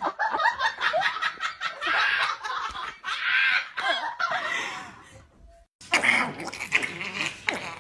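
A person laughing in quick, choppy snickers; the laughter breaks off for about half a second just past the five-second mark, then picks up again.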